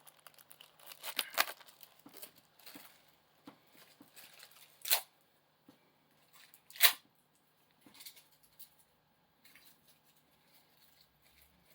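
Packaging of a boxed die-cast model being handled and unwrapped: scattered rustles and clicks, with two sharp tearing sounds about five and seven seconds in.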